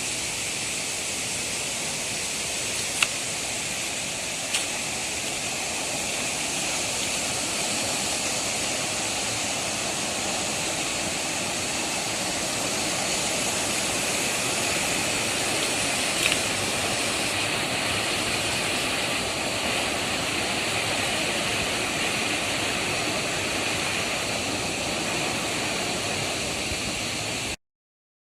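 Ōwashidani waterfall: water falling and rushing in a steady, even roar, with a few brief clicks; the sound cuts off suddenly near the end.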